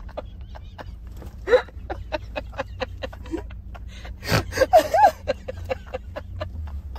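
A man laughing hard without words, wheezing and gasping, with the loudest squealing bursts about a second and a half in and again around four to five seconds in. Underneath is the low steady road rumble of a car's cabin.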